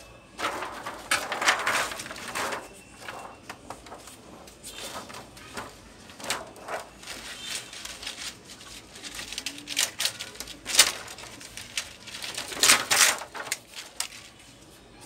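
Thin plastic reflector sheet of an LED TV backlight being laid into the metal back tray and smoothed down by hand: irregular crinkling and rustling in several bouts, with scattered clicks and taps against the tray.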